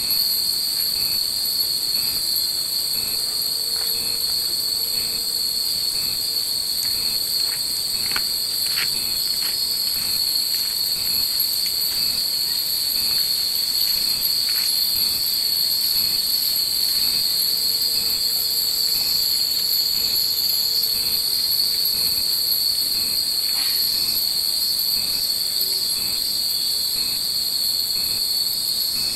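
Cicadas shrilling in a steady, high-pitched chorus, with a faint regular pulse about twice a second. A few faint tinkles of the wind chimes strung in the trees come through now and then.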